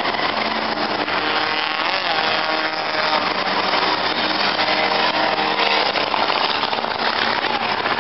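Several enduro race cars' engines running hard as the pack races around the oval, a dense, steady din with engine pitches rising and falling.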